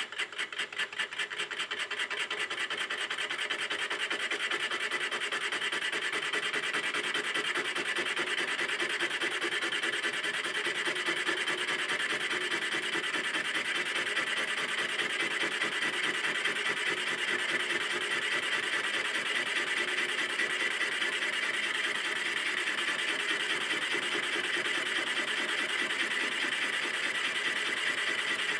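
Boring bar in a milling machine's boring head cutting the bore of a cast-iron bearing block, a steady scraping cut. In the first couple of seconds it comes as regular pulses, which smooth into a continuous cutting sound.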